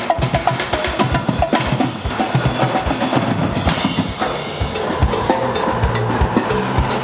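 Live percussion ensemble playing a fast, driving beat on drum kits together with steel oil drums and plastic water-jug drums struck with sticks. Cymbal hits grow denser about two-thirds of the way through.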